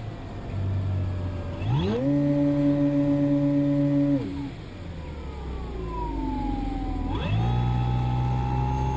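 RC aerobatic plane's motor and propeller, throttled up and down: it surges to a higher pitch about two seconds in, holds for a couple of seconds, drops back with a falling pitch, then climbs again near the end.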